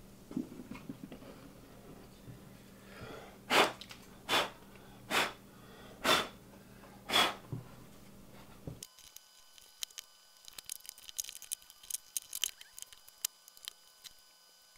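Five short, sharp puffs of air about a second apart, then a run of light clicks and taps as the plastic housing and internal parts of a Ryobi reciprocating saw are handled and fitted together.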